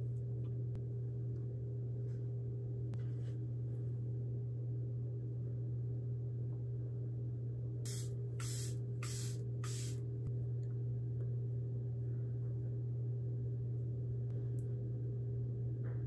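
Makeup setting spray spritzed four times in quick succession, about eight seconds in, over a steady low hum.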